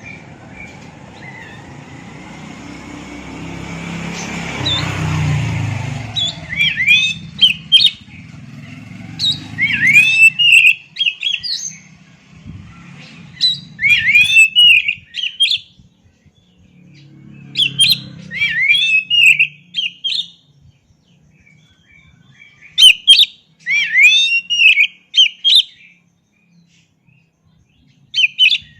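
Oriental magpie-robin (kacer) singing in separate bursts of loud, fast whistled and chattering phrases, each a second or two long with short pauses between. Before the song starts, about six seconds in, a rushing noise swells up and fades.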